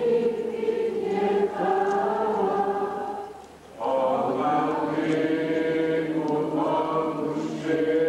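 Many voices singing a hymn together in long held phrases, with a short breath break about three and a half seconds in.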